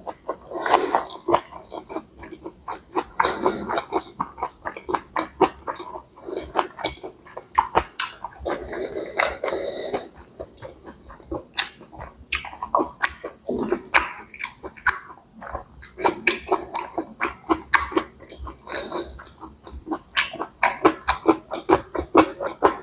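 A person eating pad see ew (stir-fried wide rice noodles) close to the microphone: steady chewing and wet mouth sounds, with many quick smacking clicks.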